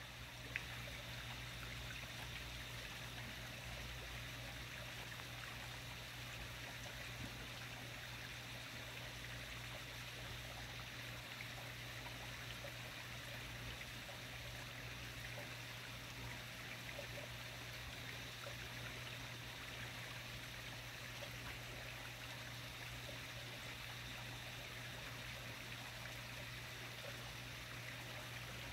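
Faint, steady outdoor night ambience: an even rushing noise with a low steady hum underneath.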